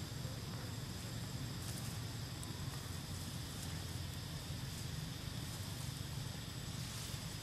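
Steady outdoor background: a constant low rumble under two thin, steady high-pitched tones, with a few faint ticks.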